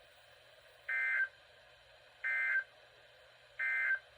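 Three short bursts of NOAA Weather Radio SAME digital data tones, two pitches together, each about a third of a second long and about a second and a half apart: the end-of-message code that closes the Required Weekly Test.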